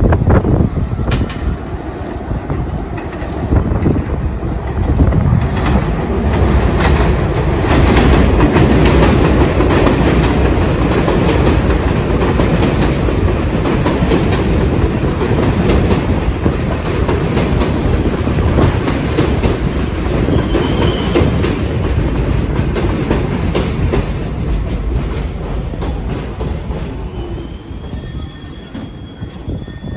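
Kawasaki R62 New York subway train running on elevated track, its steel wheels clattering over rail joints with brief high wheel squeals. The sound is loud and dense and eases off near the end.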